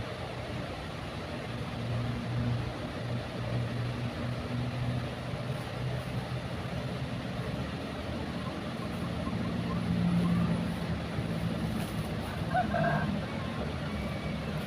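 A steady low engine drone over an outdoor background hiss, swelling slightly a little past the middle, with a brief higher sound near the end.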